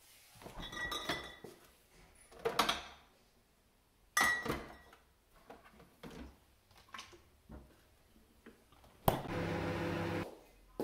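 Glass bottles clinking in a refrigerator door bin as the fridge is opened and bottles are handled: a few short ringing clinks. About 9 seconds in, a sharp click, then the steady hum of a microwave oven running for about a second.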